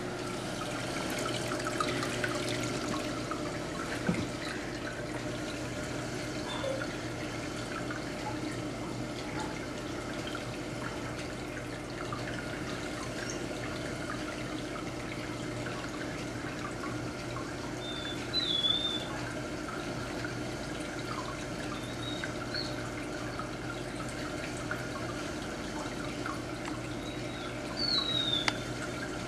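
Water trickling and splashing in a saltwater aquarium, over a steady hum from the tank's pumps. A few faint high chirps come through, the clearest about two-thirds of the way in and again near the end.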